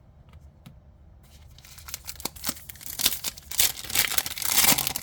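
Foil booster-pack wrapper being torn open and crinkled by hand, starting about a second in and growing louder toward the end, with a few light clicks before it.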